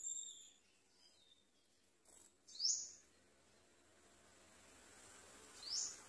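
Sunbird calling: short, high, sharp notes that sweep upward, one loud call a little under halfway through and another near the end, after a thinner high note at the start.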